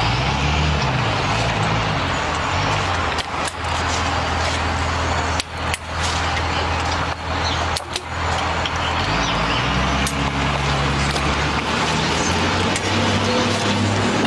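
Food sizzling in hot oil in a steel pan over a wood fire, with a few sharp clicks, and a low droning hum underneath.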